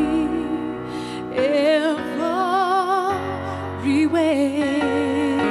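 A woman singing a slow ballad live into a microphone, holding long notes with a wide vibrato, two phrases in all, the second starting about four seconds in, over a steady piano accompaniment.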